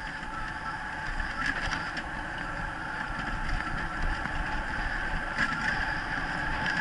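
Steady rolling noise of a three-wheeled dryland dog rig's wheels running over a dirt forest track, with a couple of sharper knocks from the rig.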